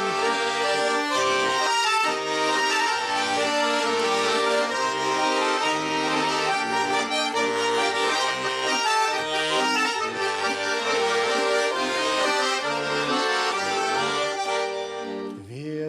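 Garmon (Russian button accordion) playing an instrumental interlude on its own: a melody over a rhythmic bass-and-chord accompaniment, easing off briefly near the end.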